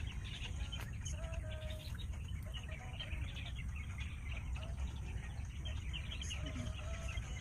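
Small birds chirping, many short high calls throughout, over a steady low rumble.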